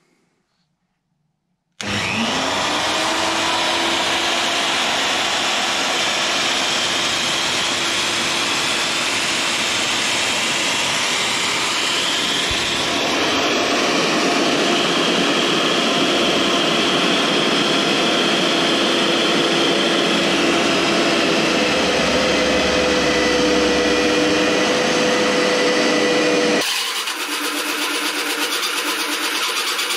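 Electric drill motor of a homemade magnetic drill press starting with a rising whine about two seconds in, then running steadily while an annular cutter bores into a steel U-channel. The sound drops in level and changes near the end.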